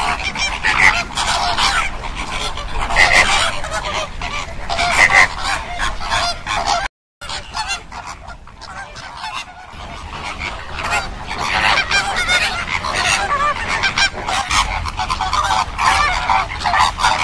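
A flock of flamingos calling, many goose-like honks overlapping. The sound cuts out briefly at about seven seconds, comes back quieter, and builds up again to dense calling.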